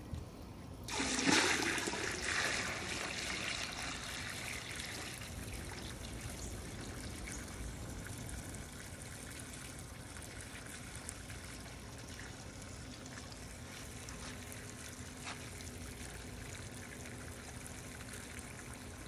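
Water trickling and splashing. It comes in suddenly about a second in at its loudest, then settles over a few seconds into a steady, quieter trickle.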